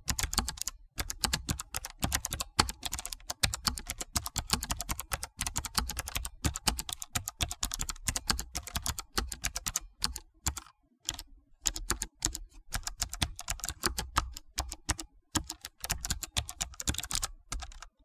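Computer keyboard being typed on quickly and continuously: a dense run of sharp key clicks with a low thud under them, broken by a few brief pauses.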